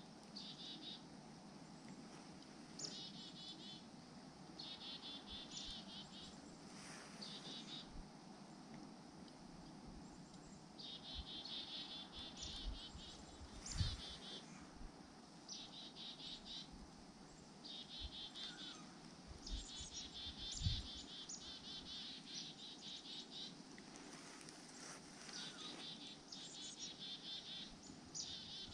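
Faint, high, rapid trills repeated in short bursts of half a second to two seconds, typical of a small songbird calling. Two soft low thumps come around the middle and about two-thirds through.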